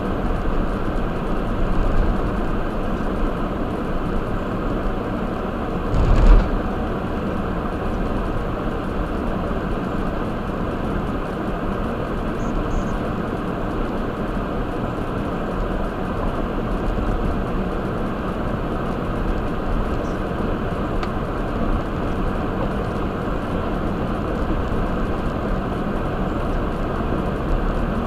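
Car driving, heard through a dashcam inside the cabin: steady road and tyre noise on wet pavement. About six seconds in comes a brief thump as the wheels go over the railroad crossing.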